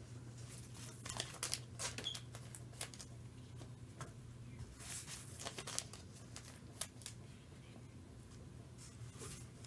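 Trading cards being handled and laid down on a card mat by a gloved hand: a run of short scrapes and clicks, most of them in the first seven seconds, over a steady low hum.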